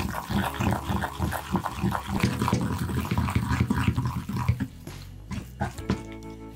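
Wooden pestle mashing and stirring tofu paste in a ceramic bowl: quick, irregular strokes that thin out after about four and a half seconds.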